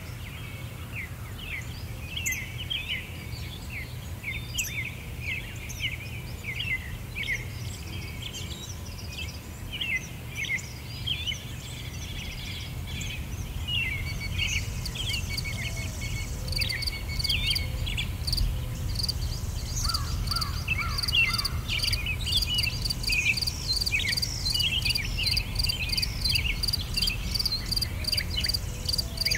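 A nature ambience of many birds chirping over a steady low rumble. From about halfway, a fast, even insect chirring joins in and grows a little louder.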